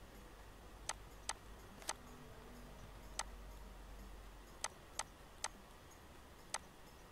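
Computer mouse and keyboard clicks: eight short, sharp clicks at uneven intervals over a faint low hum.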